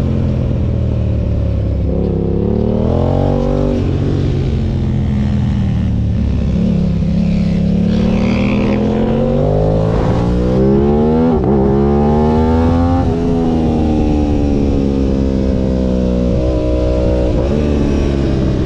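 Aprilia RS660's parallel-twin engine under way, its revs climbing and dropping back again and again as the bike accelerates, shifts and slows, with a longer climb about six to ten seconds in and a quick up-and-down blip near the middle. Wind noise runs under the engine.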